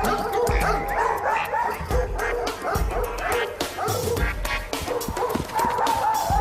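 Dogs yipping, whimpering and barking over and over, with background music.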